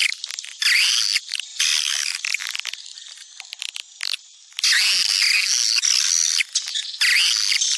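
Recorded swiftlet calling sound, the kind played to lure swiftlets to nesting houses: bursts of rapid, high twittering chatter about a second long with short gaps between them, thinning to faint clicks for a couple of seconds in the middle.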